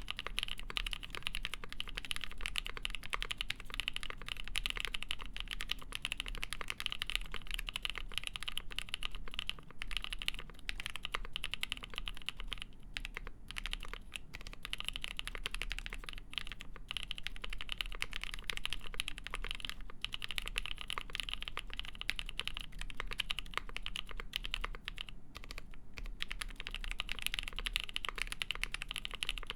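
Continuous typing on a Polaris mechanical keyboard with lubed NK Cream linear switches, a full polycarbonate plate and GMK Shoko keycaps: a dense, steady stream of keystroke clacks with a few brief pauses.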